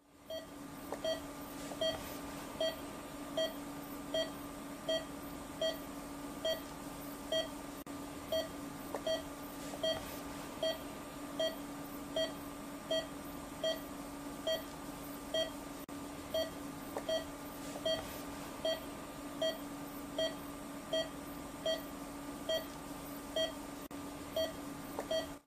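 Operating-room patient monitor beeping in time with the patient's heartbeat: a short mid-pitched beep about every 0.8 seconds, roughly 75 a minute, over a steady hum.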